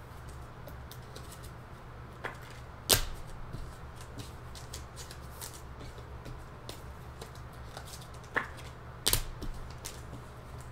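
Trading cards being handled and sorted on a table: light rustling and small clicks, with two sharp clicks about six seconds apart, each preceded by a softer one, over a steady low hum.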